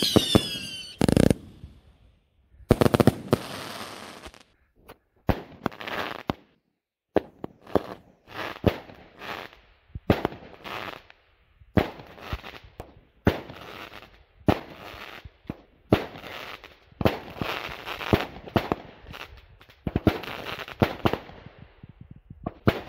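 Consumer fireworks battery (cake) firing a rapid series of shots. Sharp launch bangs and aerial bursts follow one another with crackling between them, with a short lull about five seconds in.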